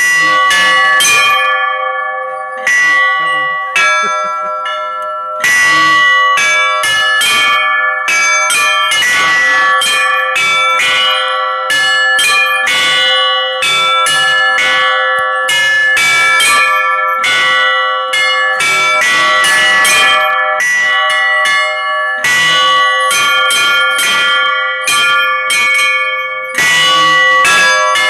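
Russian Orthodox church bells rung by hand, several bells struck in quick, irregular strikes while their tones ring on between the strikes.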